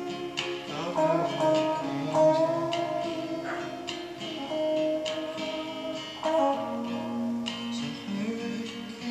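An electric guitar and an acoustic guitar playing together: held lead notes, some sliding or bending in pitch, over strummed chords.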